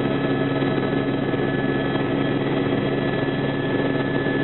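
Tour helicopter's engine and rotor running steadily, heard from inside the cabin: an even drone with a thin, constant whine over it.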